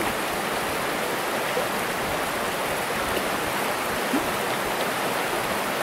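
Steady rush of a flowing trout stream.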